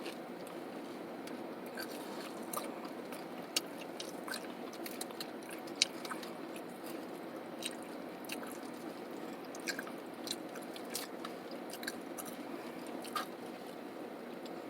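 A person chewing and biting into crunchy nacho tortilla chips close to the microphone, with scattered sharp crunches, over a steady hum of the car's air conditioning.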